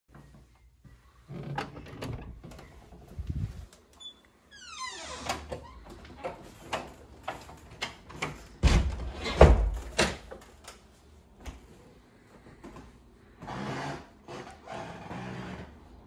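Wooden apartment door being unlocked and opened: clicks and knocks from the lock and knob, a rising creak about four and a half seconds in, then a run of heavy thuds around the middle, the loudest part, and softer knocks and rustling near the end.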